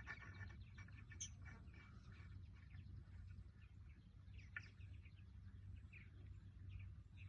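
Near silence: faint, scattered bird chirps over a low steady hum.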